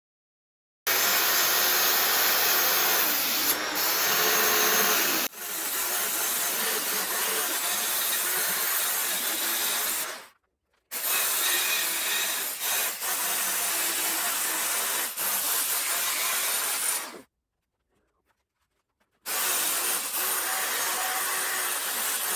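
Handheld power tool grinding and abrading steel, running steadily in three stretches broken by abrupt cuts to silence, with a step down in level about five seconds in.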